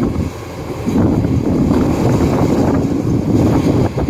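Kubota DC93 rice combine harvester running as it cuts, its engine and machinery noise mixed with wind rumbling on the microphone.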